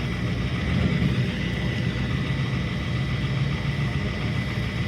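Vehicle engine idling steadily, a low even rumble with no revving.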